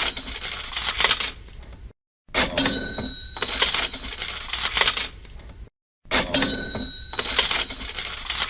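Cash register sound effect, played in a loop: each time a bell rings, then coins clatter, then it breaks off briefly before the next. It plays about twice through.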